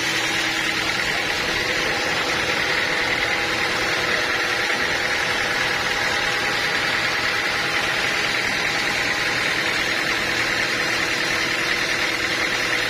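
Sawmill machinery running steadily: a constant engine-like drone with a high hiss on top, unchanging throughout.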